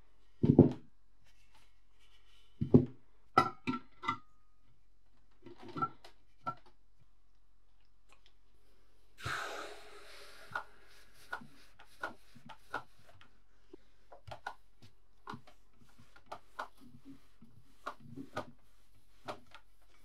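Irregular knocks and clicks of hard objects being handled and set down. The loudest come in the first few seconds, a few with a short metallic ring. About nine seconds in there is a brief rustle, followed by many lighter clicks.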